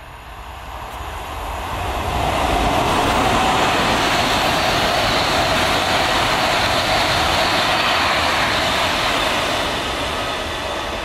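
Class 390 Pendolino electric train passing through at speed. A steady rush of wheels on rail and air builds over the first two seconds, holds, then eases near the end.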